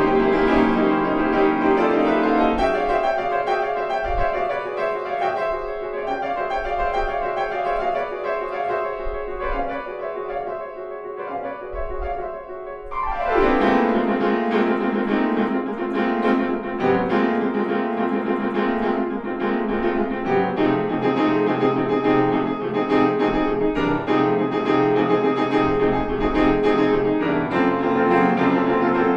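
Longato grand piano played solo in a classical recital piece: a quieter passage, then a fast downward run about 13 seconds in leading into louder, fuller playing.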